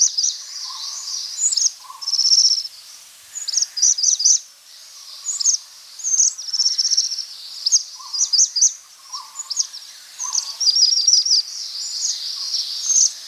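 Sparrow chirping: quick clusters of short, high chirps and brief trills, with a few lower notes beneath.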